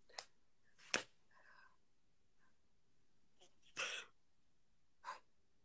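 A person's short, breathy exhalations, about five puffs of breath with quiet between them, the loudest about two thirds of the way through.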